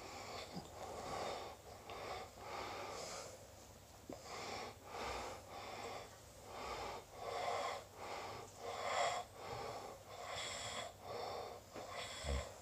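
A sleeping person breathing noisily with a wheeze, in quick, regular breaths one after another.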